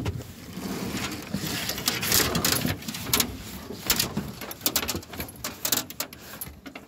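Large flathead catfish flopping in a landing net on a wet boat floor: an irregular busy run of wet slaps, rustling and knocks.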